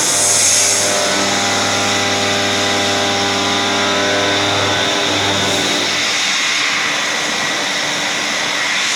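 CNC milling machine cutting stainless steel at high feed, about 5000 mm/min: a steady machining noise with a high hiss and a low hum, and a set of steady tones that hold from about a second in until about halfway through.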